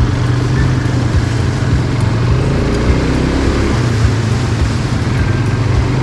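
A motor running steadily with a low, even hum, over a hissing noise.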